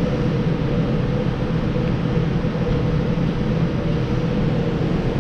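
Steady machine hum with a low drone and a rush of air, like fans or ventilation running without change.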